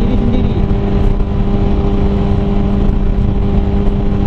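Sport motorcycle engine running at a steady cruising speed, its pitch holding level with no revving, under heavy wind rush on the rider's microphone.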